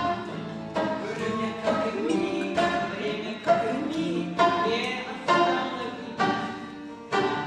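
A song performed live: instrumental accompaniment with a strong accent about once a second and a voice singing the melody.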